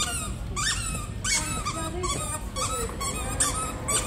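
Squeaker inside a Lamb Chop plush dog toy squeaking over and over as a dog chews and presses it, short high squeaks about two a second.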